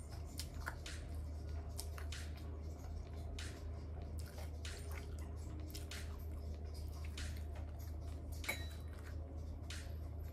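Close-up wet chewing and mouth sounds of a person eating Indomie instant noodles: irregular smacks and clicks over a steady low hum.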